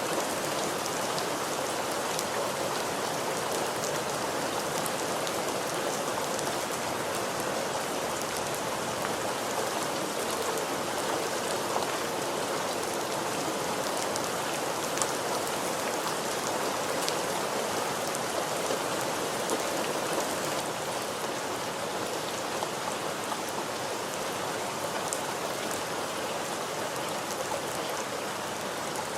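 Steady rain falling, a continuous hiss with scattered ticks of individual drops hitting a surface.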